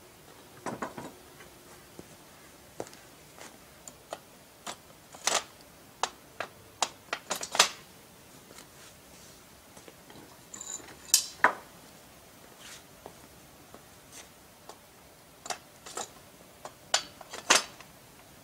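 Square steel tubing of a bandsaw mill rail frame clanking and knocking as pieces are handled and set in place: an irregular string of sharp metal knocks, the loudest a little past the middle.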